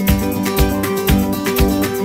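Background music: strummed guitar with a steady beat, about two beats a second.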